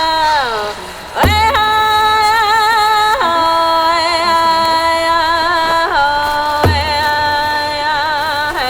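Music with long held, wavering melodic notes, marked by two low drum hits.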